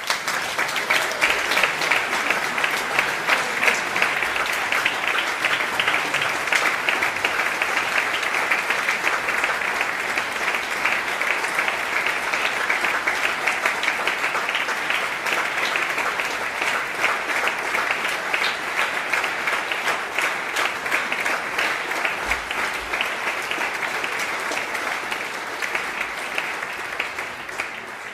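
Audience applause: a dense, steady clapping that starts at once and tails off slightly near the end.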